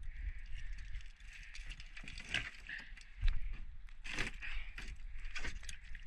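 Hands working a mesh fishing trap to pull out an octopus: the netting and its frame rustle and click in quick, irregular taps, over a steady hiss and a low rumble.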